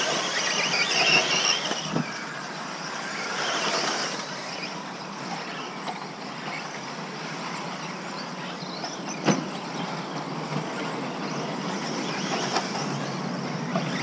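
Electric 1/10-scale two-wheel-drive RC buggies racing on an artificial-turf track: a high motor whine that rises and falls as they accelerate, over tyre noise. There is a sharp knock about nine seconds in.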